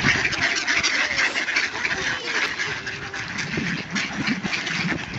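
A flock of mallards quacking, with many short calls overlapping in a busy chatter.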